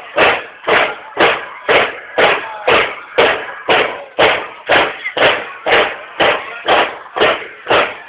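Marching drums of a banda de guerra beating a steady, loud parade cadence, about two beats a second.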